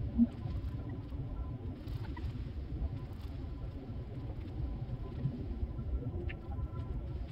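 Low, steady outdoor background rumble, with one short thump about a quarter of a second in.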